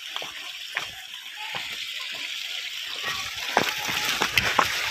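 Steady rushing of flowing water, growing a little louder, with footsteps scuffing and knocking on rocks and gravel, more of them near the end.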